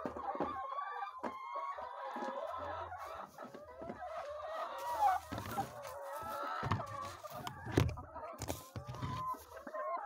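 Laying hens clucking and calling continuously in a poultry house, many short calls overlapping. A few knocks come in the second half, the sharpest near the end.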